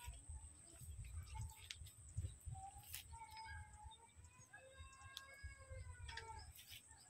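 Faint outdoor sound: a low rumble on the microphone, a steady high-pitched whine, and a long drawn-out bird call. The call comes in about two and a half seconds in and lasts a few seconds, rising and then falling in pitch.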